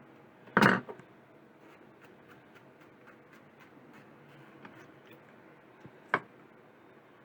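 Small objects being handled on a work surface: a loud brief clatter about half a second in, faint light taps and ticks, then one sharp knock near the end.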